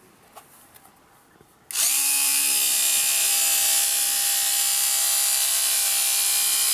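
WBT electric scissors, a small handheld power cutter with its A-type blade, starting about two seconds in and running steadily at an even pitch as it cuts through a wood-grain sheet.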